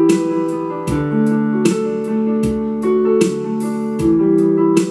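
Yamaha YPG-235 portable keyboard playing simple sustained piano chords over its built-in drum rhythm accompaniment. The chords change every second or so, with a drum hit about every 0.8 s and lighter hits between.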